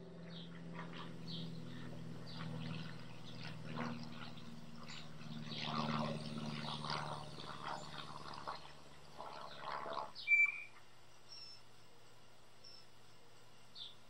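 Young blue jays calling over and over in quick succession, with a low steady drone underneath. Both stop about ten seconds in. A single short, loud high note follows, then a few faint high chirps.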